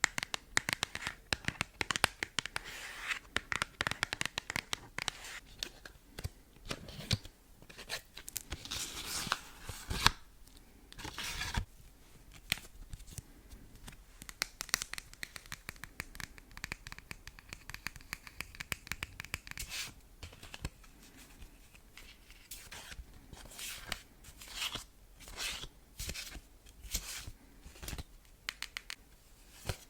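Fingernails tapping and scratching on oracle cards: many quick sharp clicks with scratchy, papery rustling in between.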